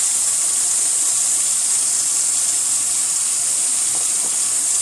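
Tap water running steadily into a sink as hands are washed, a constant hiss.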